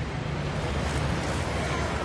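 Steady murmur of a large arena crowd.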